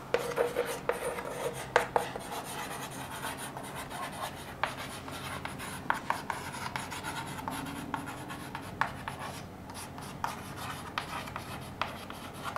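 Chalk writing on a chalkboard: scratchy strokes with frequent sharp taps as letters are written out.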